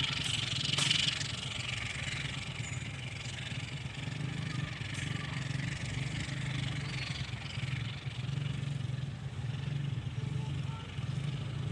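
Motorcycle engines idling and moving off at a level crossing, mixed with the running noise of a departing train, with a sharp click about a second in.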